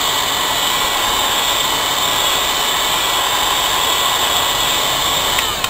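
Hot air gun blowing steadily on its high setting, heating a phone's display to soften the adhesive, with a faint whistle in the airflow. Near the end a click as it is turned down to low.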